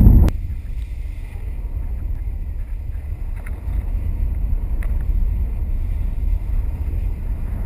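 Wind buffeting the microphone of a camera mounted on a flying kite: a steady low rumble, with a louder gust and a sharp click right at the start and a couple of faint ticks later.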